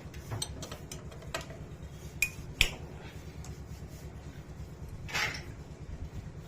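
Scattered metallic clicks and clinks of a spanner working an 8 mm bolt loose on a motorcycle engine, with a short rasping scrape about five seconds in, over a steady low hum.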